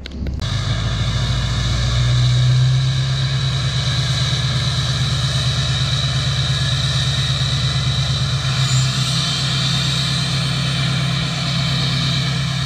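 LBZ Duramax 6.6-litre V8 turbo-diesel in a Chevrolet pickup idling steadily through a straight-piped exhaust, with a low, even exhaust pulse. The engine is warming up in freezing weather and puffs grey smoke.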